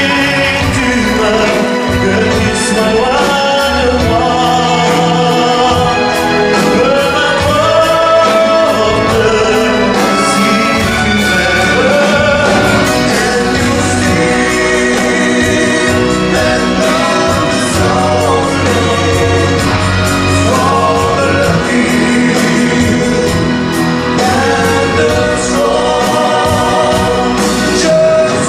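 Three male singers singing together into microphones, backed by a live band with bass guitar, drum kit and percussion.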